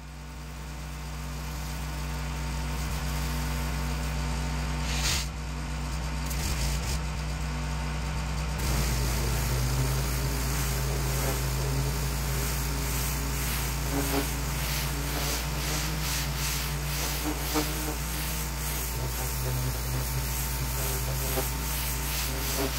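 John Deere pressure washer's engine running steadily. About a third of the way in it gets louder and the hiss of the turbo-nozzle spray hitting the bluestone steps joins it, going on to the end.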